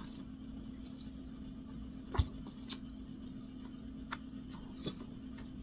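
Quiet, irregular mouth clicks and smacks of someone chewing a doughnut, the sharpest about two seconds in, over a steady low hum.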